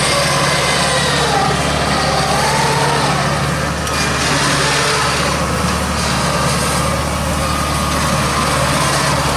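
Engine of a straw-gathering machine converted from an old rice harvester, running steadily at work, with a faint whine that wavers up and down in pitch above its hum.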